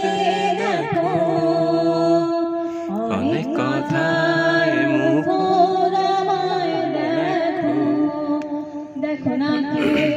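A woman singing a song into a handheld microphone, holding long notes with a wavering pitch and sliding between them.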